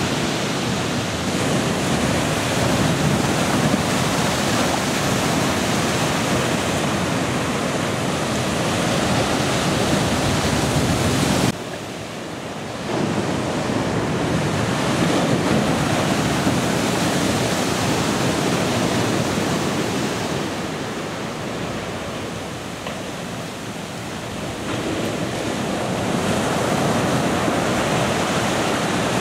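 Heavy storm surf: big waves breaking and churning in foam against the shore, a continuous loud rush of water. It drops abruptly for about a second around a third of the way in, then builds again, and softens for a few seconds later on.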